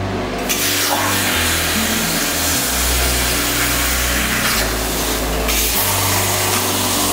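CNC plasma cutting torch firing about half a second in and cutting steel plate with a steady hiss, over background music with a bass line.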